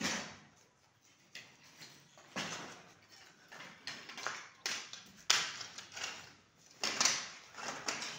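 Footsteps crunching and scraping over broken masonry rubble, in an uneven series of steps with a sharper crunch about five seconds in.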